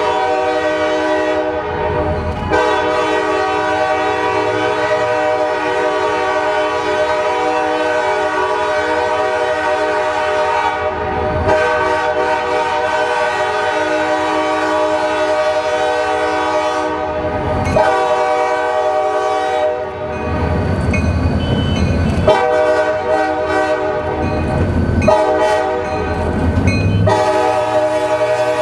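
Locomotive air horn, a multi-chime Nathan K5LA, sounding long held chord blasts with brief breaks, then a run of short choppy blasts before another long blast near the end. Low locomotive and rail rumble fills the pauses between blasts.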